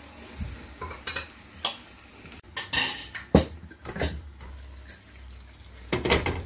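Glass pot lid with a metal rim clinking and knocking against a wide metal frying pan as it is set on and later lifted off, several separate knocks with the loudest about three and a half seconds in. Chicken livers sizzle faintly in the pan underneath.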